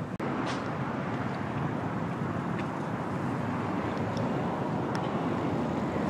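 Steady outdoor city noise, a continuous rumble of road traffic, with a momentary dropout just after the start.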